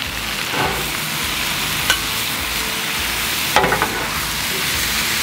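Food sizzling in oil on a Blackstone flat-top griddle while two metal spatulas toss spinach and cherry tomatoes, with a few sharp clicks and scrapes of metal spatula on the griddle plate.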